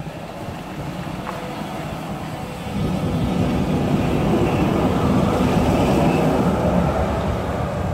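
City tram rolling past at close range, a steady rumble of its wheels on the rails and its drive running, growing louder about three seconds in as it passes by.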